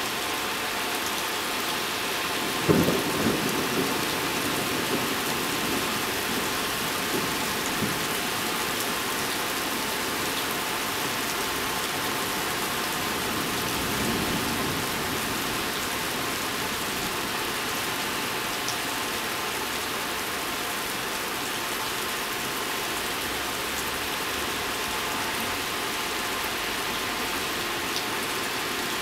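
Steady rain falling and spattering on wet surfaces, with a sudden crack of thunder about three seconds in that rumbles away over the next couple of seconds, and a fainter rumble of thunder around the middle.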